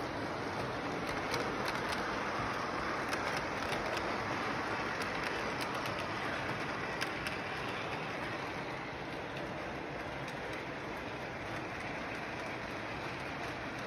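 Lionel model train cars rolling along the track, a steady whirring rumble with a few faint clicks in the first few seconds, easing slightly in the second half.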